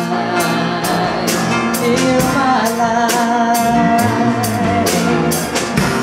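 Live gospel song played by a band on piano and drum kit, with cymbal strokes keeping a steady beat about twice a second under sustained notes, between sung lines.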